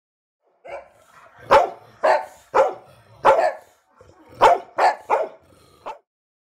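A dog barking repeatedly, about nine barks in two runs with a short pause between them.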